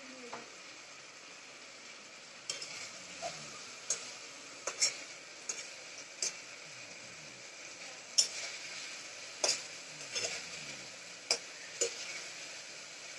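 Metal spatula stirring potatoes frying in oil in a metal pot: a steady sizzle, with irregular clinks and scrapes of the spatula against the pot starting a couple of seconds in.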